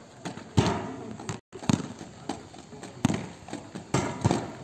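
A handful of sharp, irregular thuds and knocks on a concrete rollball court: the ball being thrown and bouncing, and inline skate wheels striking the ground. The loudest hit comes about half a second in.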